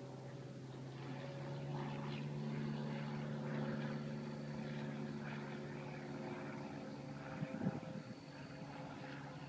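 Airplane flying over the storm area: a steady engine drone that swells a second or two in and then slowly fades. A couple of brief thumps near the end.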